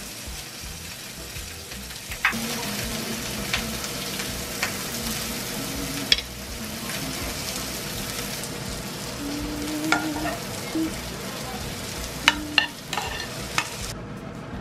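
Food sizzling in a frying pan, starting up about two seconds in, with a few sharp clicks of a utensil against the pan.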